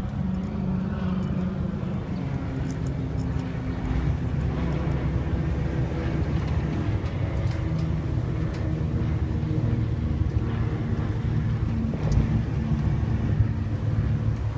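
Passenger ferry's engines running, a steady low drone with a rushing hiss over it; the engine note shifts slightly about four seconds in.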